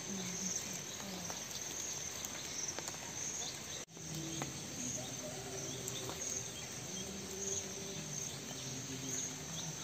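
Insects chirping: a steady high drone that swells in regular pulses, with a very brief drop-out about four seconds in.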